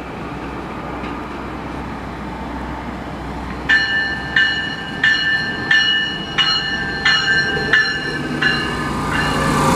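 Stadler GTW diesel light-rail train approaching with a steady low rumble. About four seconds in, its warning bell starts ringing, about nine strikes at roughly one and a half a second. Near the end the train's sound grows louder as it draws alongside the platform.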